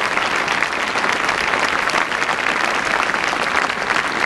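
A large crowd applauding, dense clapping at a steady level with no let-up.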